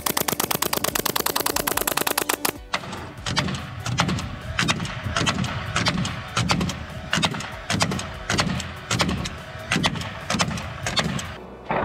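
Pneumatic staple gun rapid-firing staples into wood-fibre sheathing board, about fifteen shots a second, for the first two and a half seconds. Then a nail gun fires repeatedly, about one to two shots a second, each a sharp crack with a dull thud, fastening the boards.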